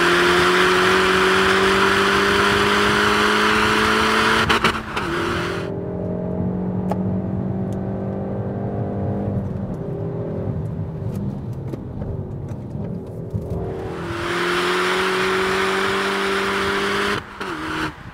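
Peugeot 308 GTi's turbocharged four-cylinder engine accelerating hard, its note rising for about four and a half seconds. Then the throttle closes and the note falls away slowly as the car slows, with faint clicks. A second hard pull rises again from about fourteen seconds in and cuts off just before the end.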